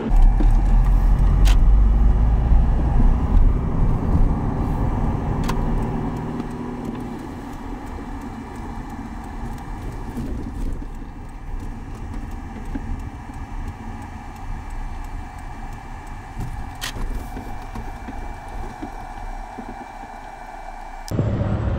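Car engine and road noise heard from inside the cabin: a heavy low rumble for the first several seconds that eases off as the car slows, with three sharp clicks along the way.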